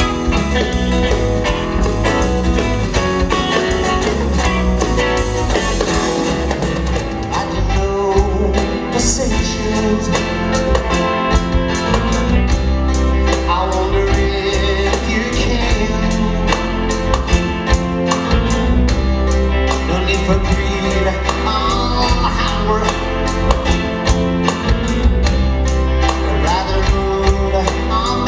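Rock music from a band: guitars over bass and a steady drum beat.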